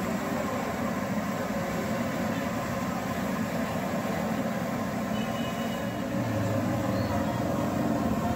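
Steady street noise of a busy market: a continuous traffic rumble, with a low engine hum coming in about six seconds in and faint voices under it.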